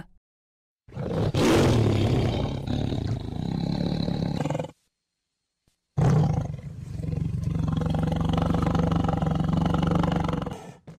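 Tiger roaring twice, each roar a long, low, rough call of about four seconds, with a silent break of about a second between them.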